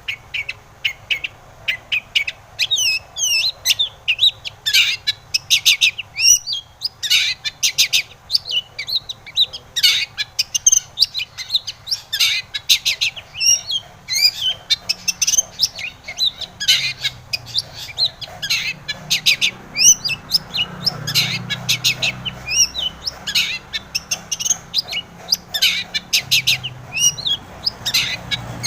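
Long-tailed shrike (cendet) singing a fast, continuous song of short high chirps and downward-sweeping notes.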